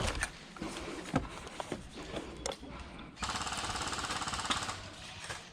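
An airsoft electric gun firing a rapid full-auto burst of about a second and a half, starting about three seconds in. Scattered single clicks and knocks come before it.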